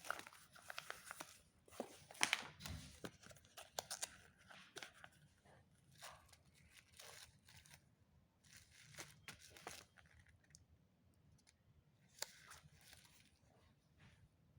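Faint rustling and crinkling of packaging being handled, with scattered small clicks and taps, busiest in the first few seconds and again briefly near the end.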